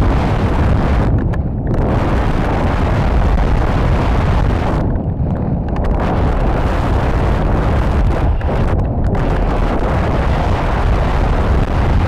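Rushing air buffeting the rocket's onboard camera microphone as the airframe descends under its flapping drogue parachute. It is a steady, heavy wind rumble whose hiss thins out briefly a few times.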